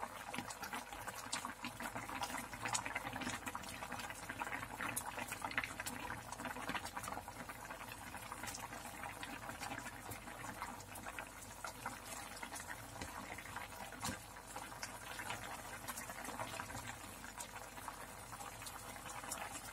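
A black slotted ladle scooping and stirring thick, chunky red stew in a frying pan: faint wet sloshing and bubbling, with small irregular clicks of the ladle against the pan.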